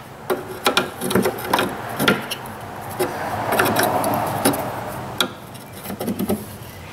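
Metal clicks and knocks of an open-end wrench and fingers on a steel brake line nut as it is threaded into a new rubber brake hose fitting and tightened, with a longer scraping rub in the middle.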